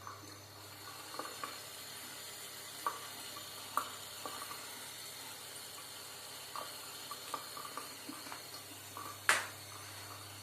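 Water running in a bathroom sink from the tap, with scattered small ticks and drips and one sharper click about nine seconds in.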